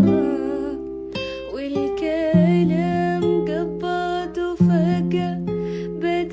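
Arabic song playing: a melody that wavers in pitch over plucked strings and held low bass notes, with brief pauses about a second in and again past the middle.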